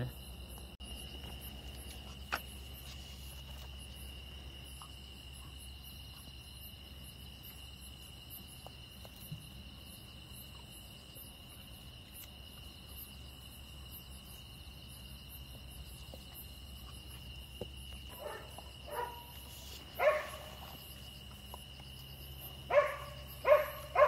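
Crickets chirping steadily in the night. In the last several seconds, dogs bark several times in short bursts; these barks are the loudest sounds.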